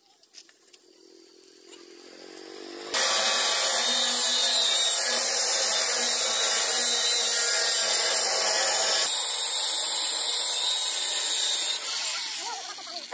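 Angle grinder cutting into a steel railing bar. The loud, steady grinding starts abruptly about three seconds in, changes pitch partway through, then stops and dies away near the end.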